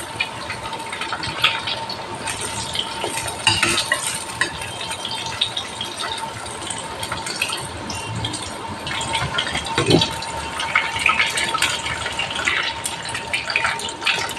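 Batter-coated chicken pieces deep-frying in hot oil in a steel kadai, a continuous crackling sizzle, while a slotted metal spatula scrapes and clinks against the pan as the pieces are turned. A louder knock about ten seconds in.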